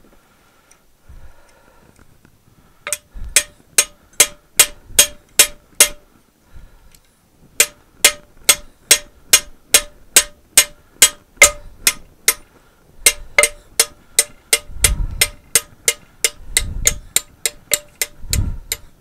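Ball-pein hammer striking a steel punch to drive a rusted pin out of a David Brown 990 tractor's cast PTO housing. Sharp metallic blows with a ringing note come about three a second, in three runs with short pauses between, and a few duller thuds come near the end.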